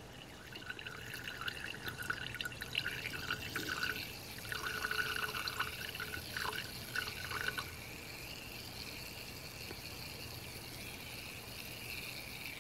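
Homemade muscadine wine running from a siphon hose through a coffee filter into a glass mason jar, trickling and dripping. The flow is uneven and spluttering for the first seven or eight seconds, then turns fainter and steadier.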